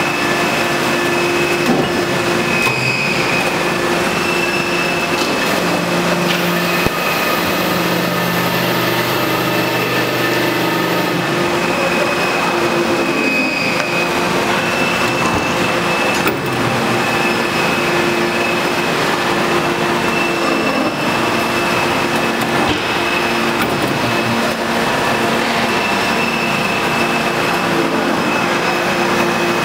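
Steady factory machinery noise around a hydraulic press: a continuous hum with a high steady whine, and an occasional short knock as brake linings are handled in the press dies.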